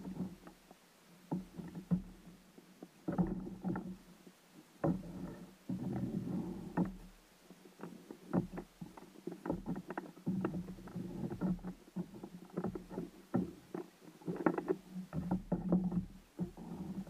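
Water slapping and gurgling against a kayak hull, with irregular small knocks on the hull.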